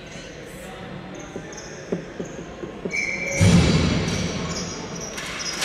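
Ball hockey play on an indoor sport-court floor: sneakers squeak in short high chirps while sticks and ball clack a few times. About three and a half seconds in, a sudden loud burst of noise rings through the hall and fades over a couple of seconds.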